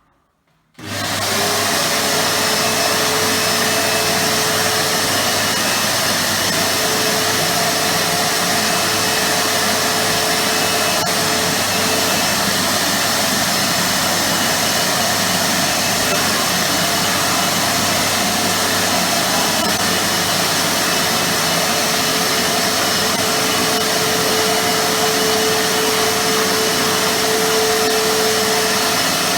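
Titan TTB350VAC wet and dry vacuum cleaner switched on about a second in, then running steadily with a constant whine, its motor noise echoing around an empty room.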